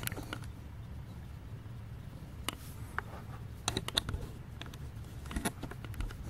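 A few scattered light clicks and taps, several bunched together in the middle and again near the end, over a steady low hum.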